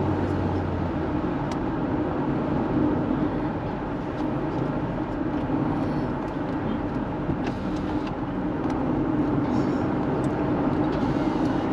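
Road noise inside a moving car: a steady rumble of engine and tyres, with a few faint clicks.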